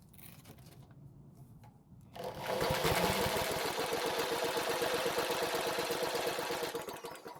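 A power drill spins the Powermate generator's small engine over for a compression test. It starts about two seconds in, runs steadily with a fast, even pulsing, and stops near the end. The engine is turning over with very low compression, reading only about 23 psi.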